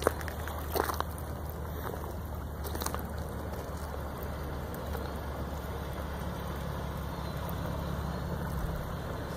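Motor of a small pontoon boat running steadily with a low hum, with a couple of short knocks in the first three seconds.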